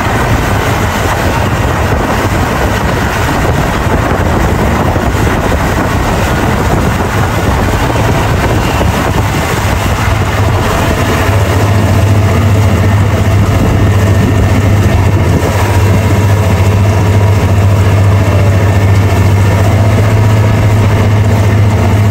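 Towing speedboat's engine running steadily at speed, a low hum that grows louder about halfway through, with rushing water around the hull.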